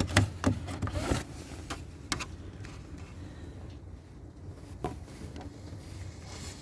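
Plastic trim clips and a cover being pried and pushed by hand, giving several sharp clicks and knocks in the first two seconds and one more click near five seconds.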